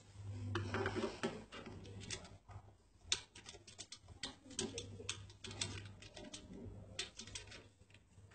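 Quick, irregular clicks and light rattles of handpiece cable plugs being handled, pushed onto and screwed into round metal connector sockets on a hydro facial machine's panel, after a stretch of cable-handling rustle in the first second or so. A steady low hum runs underneath.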